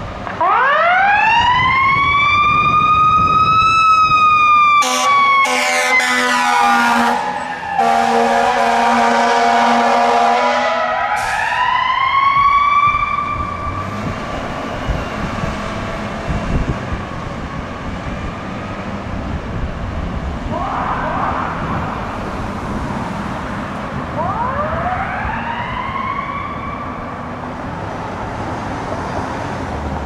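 Fire engine's Federal Signal EQ2B mechanical siren winding up and slowly coasting down, with two long air horn blasts about five and eight seconds in. The siren winds up again and fades as the truck moves away, and a fainter wind-up follows near the end.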